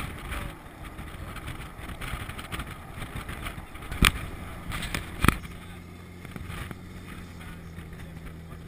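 Open-sided tour jeep driving a rough dirt trail: engine rumble and wind buffeting the microphone, with two sharp knocks about a second apart near the middle as the jeep jolts over the trail. The engine settles into a steadier low hum after the knocks.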